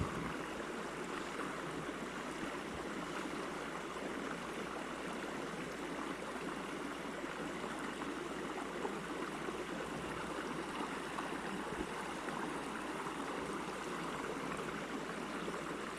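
Mountain trout creek running steadily, a constant even rush of flowing water.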